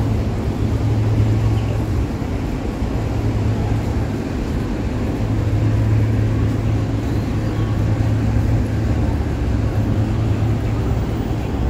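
Steady low mechanical hum, stronger in the second half, over general urban outdoor noise.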